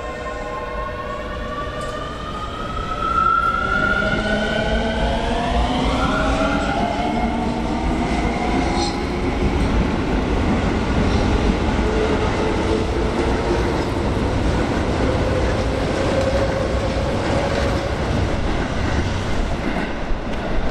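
Keio 7000 series electric train accelerating, its traction drive whining in several tones that rise in pitch over the first several seconds. About three seconds in it grows louder, then runs on as a steady rumble of running noise with a fainter whine.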